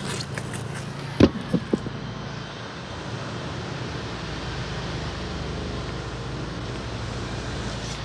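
Steady city street traffic noise, with a few sharp knocks about a second in.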